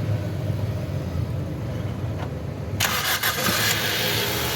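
2013 Toyota Corolla's four-cylinder petrol engine being started: a low rumble, then it catches with a sudden burst of sound near three seconds in and settles into running. It is now firing on all four cylinders, the misfire cured by putting the swapped injector connectors back on the right injectors.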